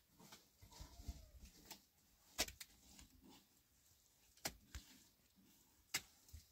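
Near silence broken by a few sharp clicks and taps of stone being handled on a rubble-and-mud wall, the loudest about two and a half, four and a half and six seconds in.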